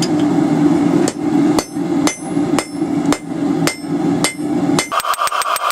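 Hand hammer striking hot steel on an anvil, about two blows a second, as a split tine is drawn out and tapered, with a steady low roar underneath. About five seconds in, the roar and hammering stop and a much faster run of ticks over a higher hum takes over.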